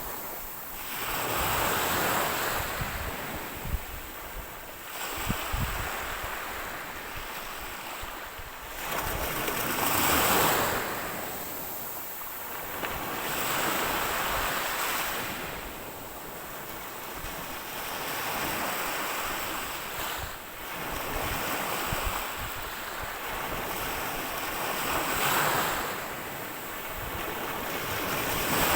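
Ocean waves breaking and washing ashore, the surf swelling and ebbing every few seconds, with some low wind buffeting on the microphone.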